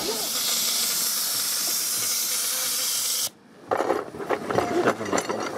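Steady hiss of steam escaping from a live-steam miniature Mogul locomotive. It cuts off suddenly about three seconds in, followed by scattered knocks and rattles close to the microphone as the camera is strapped onto the locomotive beside the boiler.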